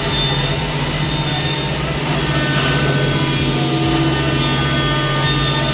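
A single-head CNC wood router running, with a steady machine hum and a steady high whine.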